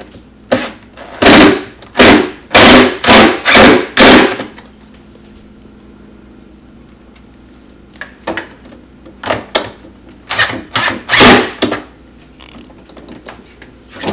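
DeWalt cordless drill/driver run in short trigger pulses, driving mounting screws. There are about five quick bursts a second or so in, then a second run of bursts from about eight seconds in: one group for each of the two screws.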